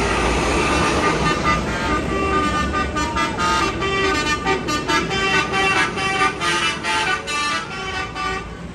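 Tour bus's basuri (telolet) musical horn playing a quick melody of short notes, starting about a second and a half in, over the rumble of the bus.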